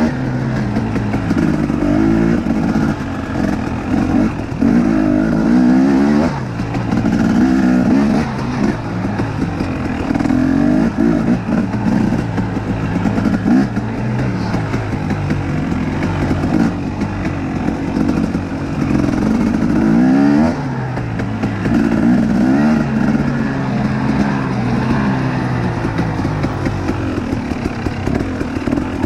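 2019 KTM 250XC's two-stroke engine revving up and down over and over, every second or two, as the dirt bike is ridden with the throttle constantly opened and closed.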